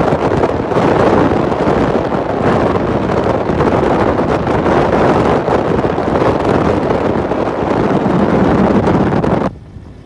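Wind buffeting the microphone: a loud, steady rushing rumble that drops away abruptly about nine and a half seconds in.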